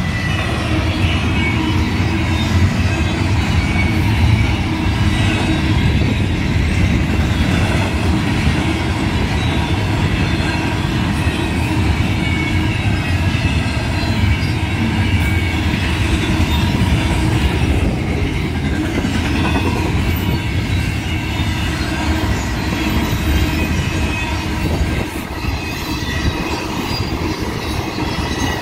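Intermodal freight cars, double-stack container and trailer flatcars, rolling steadily past on the rails: a continuous low rumble of wheels on track with a faint high wheel squeal above it.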